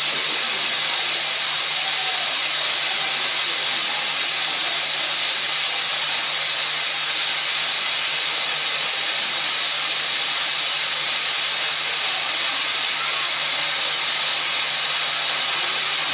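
Security fog generator discharging fog with a loud, steady hiss and a low steady hum underneath.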